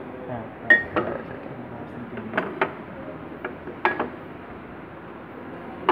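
Glass specimen jars knocking and clinking against each other and the tabletop as they are shifted by hand: several sharp knocks in pairs, the first with a short ringing tone.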